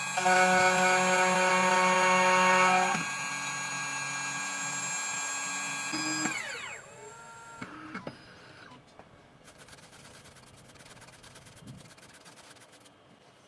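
2M2TANK 2 Pro CNC key cutting machine's spindle running with a steady whine while the V cutter cuts the groove in the key blank, louder for the first few seconds. About six seconds in the spindle stops and winds down with a falling whine, the sign that this side's groove is finished. Near the end a faint fast run of fine clicks follows.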